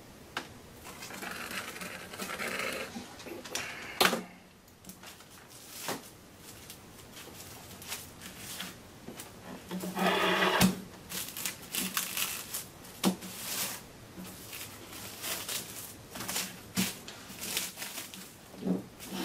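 Clear plastic film crinkling and rustling as hands pull it over a wooden cutting board and fold it around the edges. There are scattered sharp clicks and knocks of the board and hands on the bench, and one louder rustle of film about ten seconds in.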